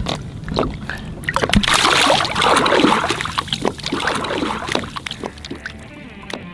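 Lake water splashing as a largemouth bass is released by hand at the side of the boat. The heaviest splashing comes about two seconds in, followed by lighter splashes and drips that fade out.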